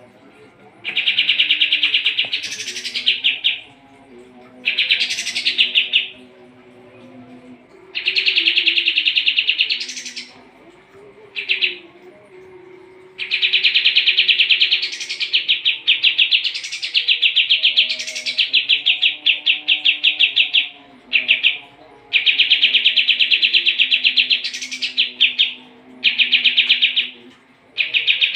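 Kapas tembak song: loud, rapid rattling trills, each one to three seconds long and many ending in a quick upward sweep, repeated again and again with short pauses between.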